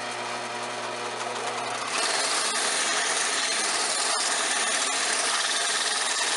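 Stationary belt sander running with a steady motor hum. About two seconds in, a wooden board is pressed against the moving abrasive belt, and a louder, steady sanding noise takes over as the wood is slid back and forth along the table.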